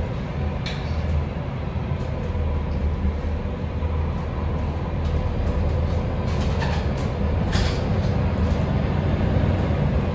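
Cabin noise inside a single-deck city bus: a steady low drone from the engine and running gear, with a few short rattles or clicks from the interior fittings about a second in and again around six to eight seconds in.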